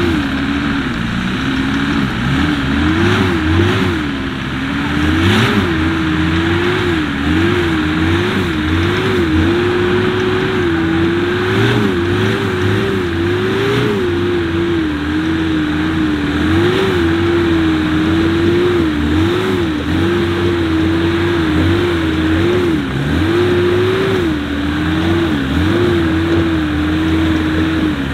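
Off-road 4x4 engine revving up and falling back again and again, the throttle constantly worked as the vehicle crawls over a rough dirt trail.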